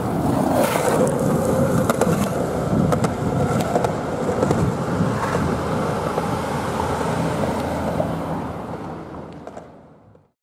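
Street traffic: vehicles, among them a box truck, driving past with a steady rumble of tyres and engines and scattered rattling clicks, fading out near the end.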